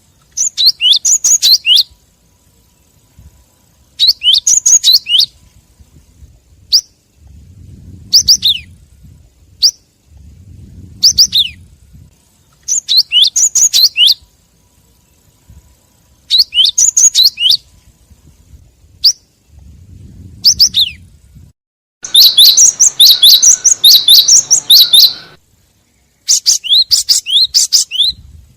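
Gelatik batu (cinereous tit) calls from a bird-lure recording: rapid runs of sharp, high chirps in bursts of a second or two, repeating every few seconds, with a longer, denser burst near the end.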